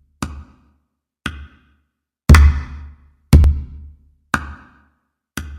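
Background music made of sparse, heavy drum hits about once a second, several with a deep bass boom under them and silence between the hits.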